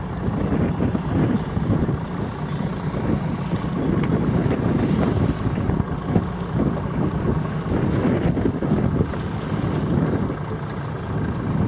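Wind buffeting the microphone out on open water: a steady low rumble that swells and eases in gusts.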